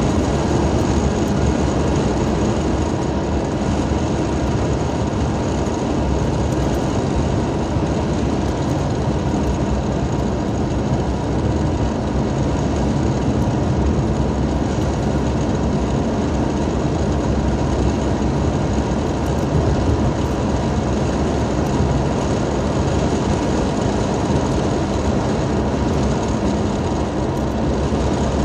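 Car driving at a steady road speed, heard from inside the cabin: steady engine and road noise.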